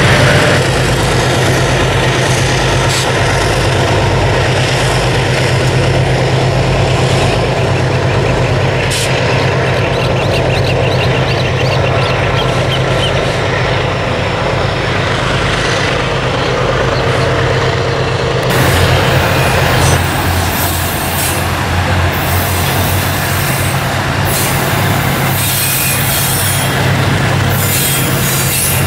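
Diesel-electric freight locomotives running with a steady low engine hum as they pass. Partway through, the sound turns to the train's wagons rolling by, with the rumble and screech of steel wheels on the rails.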